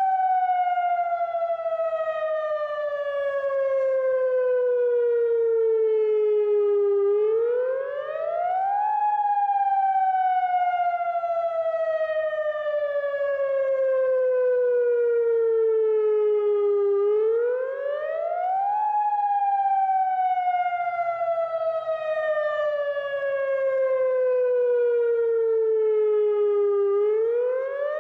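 Federal Signal Modulator 8032B outdoor warning siren sounding a test wail. Its pitch climbs for about two seconds, then falls slowly for about eight, and the cycle repeats roughly every ten seconds.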